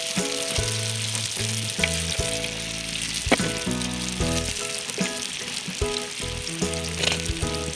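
Sfenj dough frying in hot oil in a tagine, a steady sizzle throughout, with background music playing over it.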